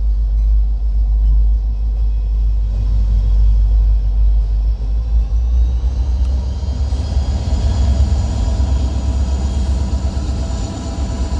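Long freight train passing close by at a grade crossing: a loud, steady low rumble of the rolling cars, with a thin high whine joining about halfway through.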